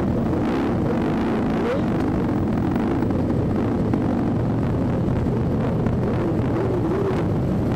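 Motorcycle engines idling at standstill, a steady low rumble with no revving.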